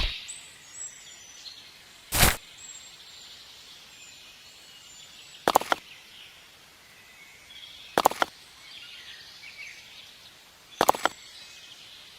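Four short, sharp knocks a few seconds apart, each a quick double, over faint bird chirps.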